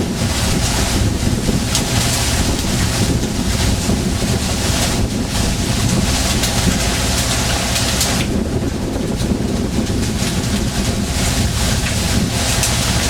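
Fishing boat under way at sea: a steady low engine rumble under wind gusting on the microphone and the rush of water, with the hiss swelling and easing every second or two.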